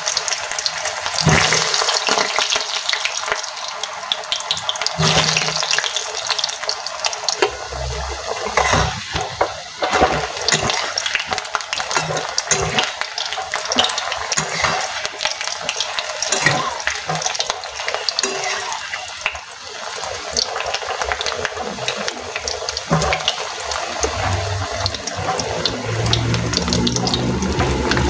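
Whole peeled potatoes sizzling and crackling in hot mustard oil in a wok, with a spatula knocking and scraping against the pan from time to time as they are turned.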